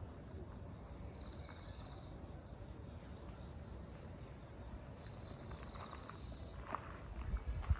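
Outdoor ambience: faint insects chirping in repeated high pulses over a low rumble, with a few footsteps on gravel and a louder thump near the end.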